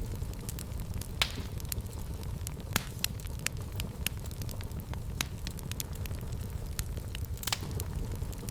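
Wood fire burning in a fireplace: a steady low rumble with irregular crackles and sharper pops, the loudest about a second in and near the end.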